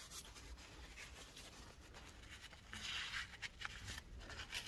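Faint scratchy rubbing of a paper shop towel wiping leftover lapping compound off an engine valve and its seat in the cylinder head, starting about two and a half seconds in.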